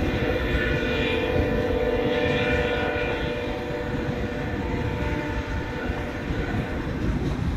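Freight train of autorack cars rolling past: a low rumble of steel wheels on rail, with a steady multi-pitched whine over it that fades about six seconds in.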